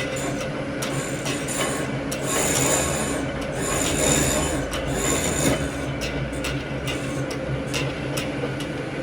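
Lathe running with a steady motor hum as a tool cuts a metal motor pulley, with a scraping, rasping sound and a regular tick about twice a second. Three louder scraping passes with a high whine come in the middle.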